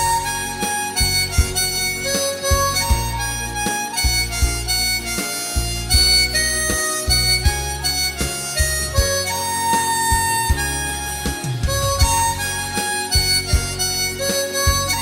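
Harmonica playing a slow pop melody in long held notes over a backing track with bass and a steady beat.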